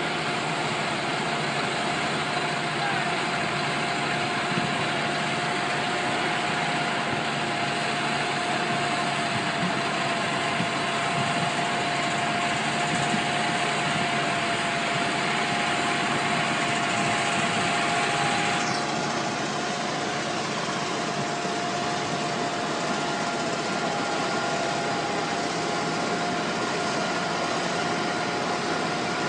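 Heavy diesel engine running steadily at idle, with a steady whine over it; the higher hiss eases a little about two-thirds of the way through.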